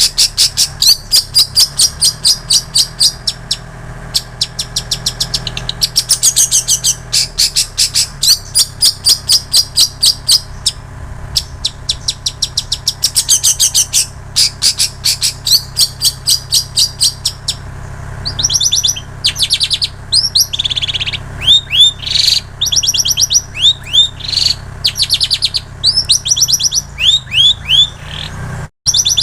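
Long-tailed shrike singing a mimicked song: long runs of fast, evenly repeated chattering trills, then about two-thirds of the way in a series of quick downward-slurred whistled notes. Its song is filled with copied prinia and canary phrases.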